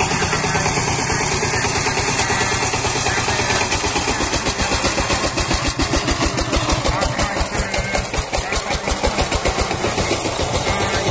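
Single-cylinder diesel engine of a two-wheel power tiller running while it pulls a loaded trailer. It has a steady firing beat that turns slower and more uneven through the middle.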